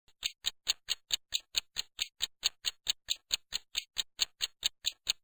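Quiz countdown timer sound effect: an even run of short, sharp clock-like ticks, about four and a half a second.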